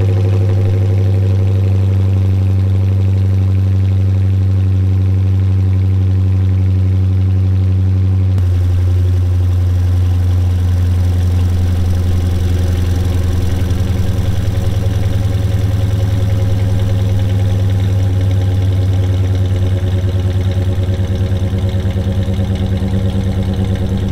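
2019 Dodge Charger Pursuit's 5.7-litre HEMI V8 idling steadily just after a cold start, through an exhaust with the rear mufflers deleted. The note changes abruptly about eight seconds in.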